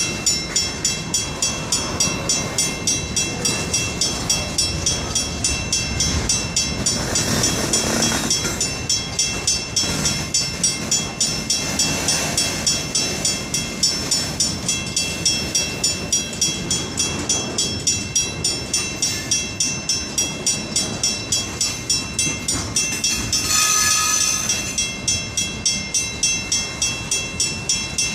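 Portland and Western freight train rolling past, under an even metallic ringing of about two to three strikes a second. A brief louder high-pitched sound comes near the end.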